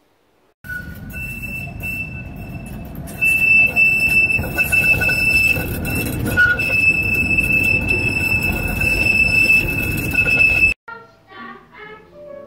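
Tram rolling past close by on a curve, its wheels squealing with a steady high tone over the rumble of running. The sound cuts off suddenly near the end and faint music follows.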